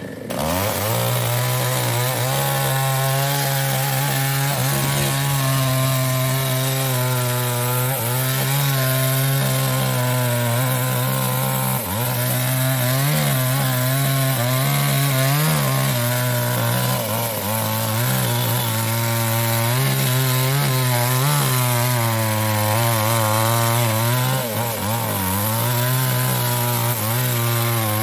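Small two-stroke New West 628 chainsaw revving up in the first half second, then running at full throttle as it cuts through a felled mahogany log, its pitch wavering slightly under the load.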